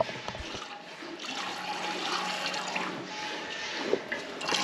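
Milk squirting into a bucket as a cow is milked by hand, a hissing splash that swells and fades in repeated spurts. A sharp knock sounds right at the start.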